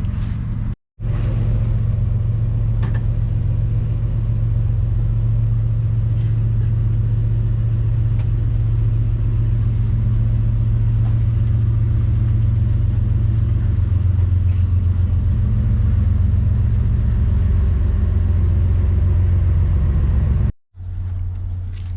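Steady low hum of a train's diesel engine running, broken by two brief dropouts, about a second in and near the end.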